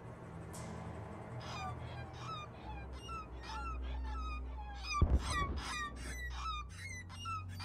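A flock of birds calling, many short downward-sliding calls overlapping one another, over a low steady rumble. A dull thump about five seconds in.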